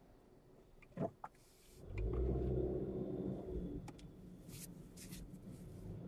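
Car engine and road noise rising sharply about two seconds in as the car pulls away from a stop and accelerates, after a quiet idle. Two brief sharp sounds come just before it, about a second in.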